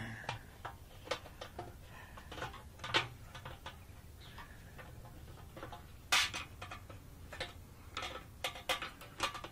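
Irregular light clicks, taps and clatter of plastic and metal parts as a motorcycle's in-tank fuel pump module is pushed and fitted by hand into the tank opening. There is a louder burst of clatter about six seconds in and again near the end.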